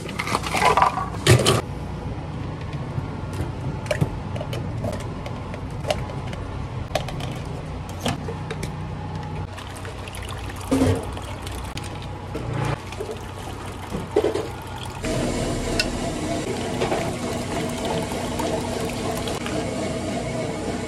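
Ice scooped from a steel ice bin with a plastic measuring cup, clattering loudly in the first second and a half, then milk tea poured over ice into plastic cups, with light knocks and clinks of cups on a steel counter. About fifteen seconds in, a steady hum with several tones joins underneath.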